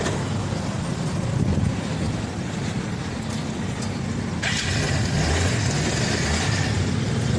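A motor vehicle's engine running steadily; a steady hiss joins in about four and a half seconds in.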